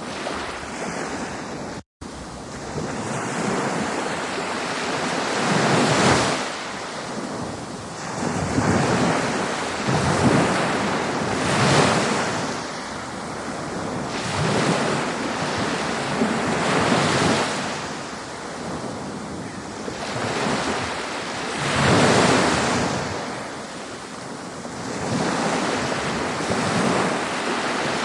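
Ocean waves breaking and washing in, swelling into a louder surge every few seconds, with a momentary dropout about two seconds in.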